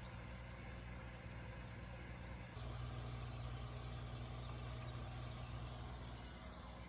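Aquarium pump running: a steady low hum with a soft watery hiss, growing louder about two and a half seconds in.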